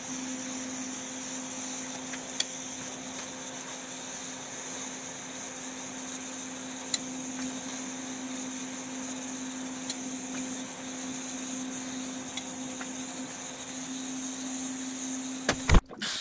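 Steady hiss of a lit oxy-acetylene torch flame heating a steel plate, over a constant low hum, with a few faint metallic taps. A sharp knock sounds near the end.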